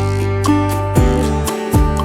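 Background music: plucked acoustic guitar with a steady bass line, a new chord struck about every half second to a second.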